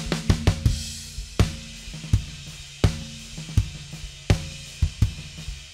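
Recorded drum kit playing a groove with cymbals and hi-hat, heard through a live mix. The overhead mics run through a compressor with a very fast attack that pulls down the snare transients so the cymbals can sit higher. A quick run of hits opens it, then a steady beat with a strong hit about every 0.7 seconds.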